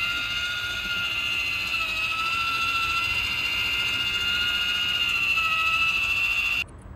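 Fan-Tastic Vent 12-volt RV roof vent fan running steadily: a rush of air with a steady high whine over it, cutting off suddenly near the end.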